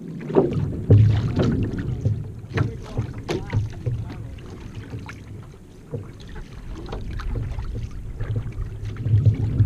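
Water rushing and splashing along the hull of a one-person outrigger canoe as it is paddled, with irregular sharp splashes from the paddle strokes and a low rush of wind on the microphone.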